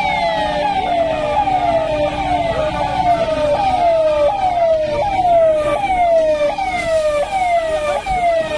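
Emergency vehicle siren sounding a fast repeating wail, each cycle jumping up in pitch and sliding down again about every three-quarters of a second. For the first couple of seconds a second siren overlaps it, out of step.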